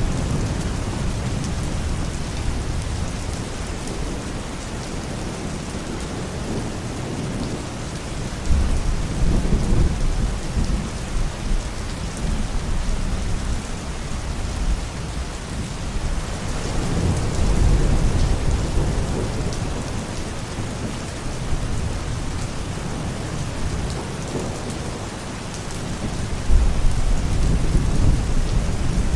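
Thunderstorm: steady rain falling, with deep thunder rumbling in three swells, about a third of the way in, past the middle and near the end.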